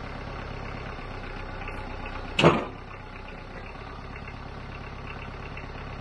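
Engine idling steadily, with one loud sharp knock about two and a half seconds in.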